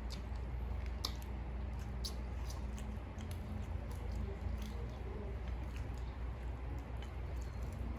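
Close-up eating sounds: a person chewing, with wet smacks and small sharp mouth clicks about once a second, over a steady low hum.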